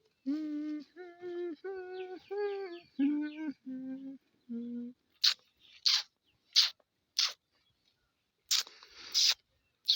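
A person hums a short tune of about eight notes. Then comes a run of short, sharp crunches, roughly one every half-second with a longer one near the end: a cow eating its fodder.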